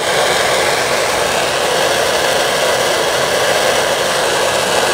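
Handheld gas torch flame hissing steadily at a constant level.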